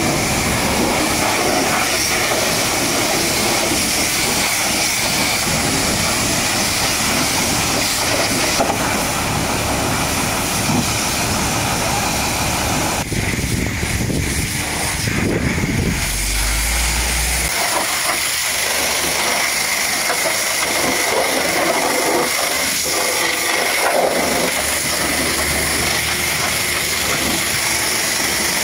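High-pressure washer jet spraying a truck's dual tires and steel wheels: a steady hiss of water striking rubber and metal.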